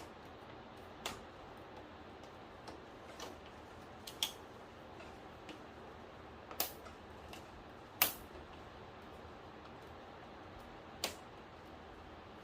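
Scattered sharp clicks and light taps, irregularly spaced, the loudest about eight seconds in, over a faint steady hiss: small parts and tools being handled while the TV is worked on.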